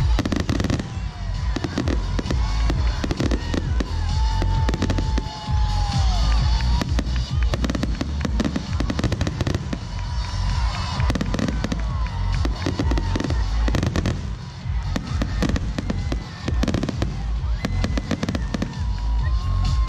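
Aerial firework shells bursting overhead, a dense run of deep booms and sharp bangs one after another with hardly a break.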